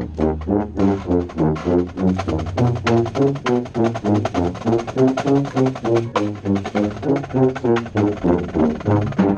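Contrabass bugle (drum corps tuba) played right at the microphone: a fast run of short, separate notes, about four a second, moving up and down in pitch.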